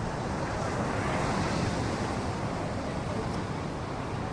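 Ocean surf breaking on a beach, a steady wash of noise that swells slightly about a second in, with wind buffeting the microphone.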